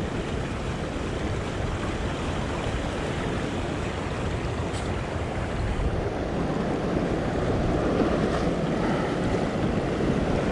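Sea swell washing and surging steadily against a rock ledge at the water's edge, with wind buffeting the microphone.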